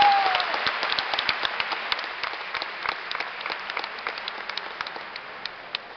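Audience applauding: scattered hand claps, fairly dense at first, thinning out and fading over the few seconds.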